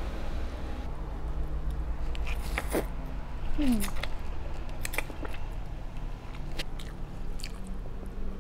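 Close-up mouth sounds of someone eating instant noodles: a few wet slurps and smacks as the noodles are drawn in, then chewing, loudest about halfway through, over a steady low hum.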